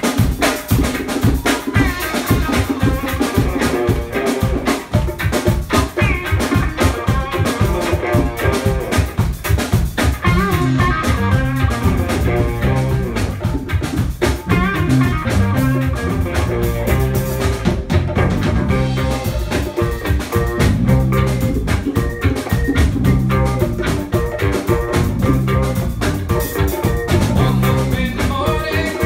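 A reggae band playing live: drum kit and electric guitars over a steady beat, the low end growing heavier about twelve seconds in.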